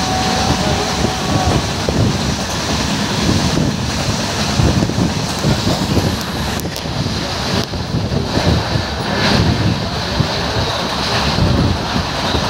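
Express passenger train running at speed: a steady, loud rumble of the coaches on the track, with rushing air buffeting the microphone.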